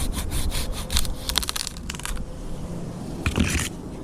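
Saw cutting through a silver maple limb with quick regular strokes, about four a second, stopping about two seconds in. A short loud burst of noise follows a little over a second later.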